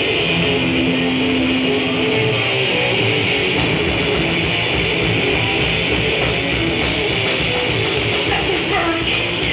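Metal band playing live: distorted electric guitars over bass and fast drums.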